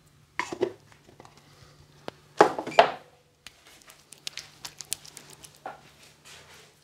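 Items being picked up and set down on a barber's worktop, with short knocks and clatters, the loudest a double clatter about two and a half seconds in. Then hands rubbing together, giving a run of small clicks.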